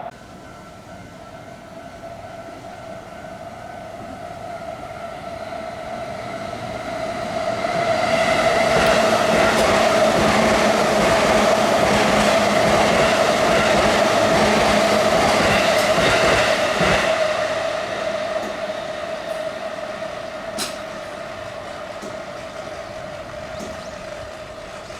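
A train passes over a railway level crossing. It builds up from about six seconds in, is loudest with clattering wheel beats from about eight to seventeen seconds in, then fades away. A steady ringing tone, typical of the crossing's warning signal, sounds throughout.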